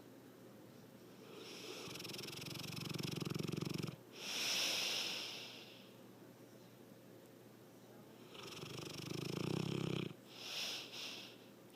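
Snoring: two slow breaths, about a second in and again near the end. Each is a low snore that builds for about two seconds, then a shorter hissing breath.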